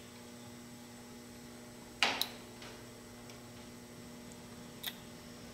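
Steady low electrical hum, with a short sharp noise and a click about two seconds in and a faint click near the end.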